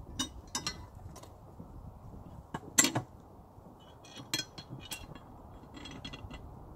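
Irregular small metal clinks and clicks of screws, bolts and lock nuts being handled and fitted through the spreader's steel handle tubes, the loudest clink about three seconds in.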